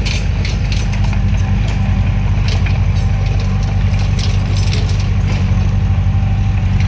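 Bulldozer's diesel engine running steadily under work, with scattered light clanks and clicks over it.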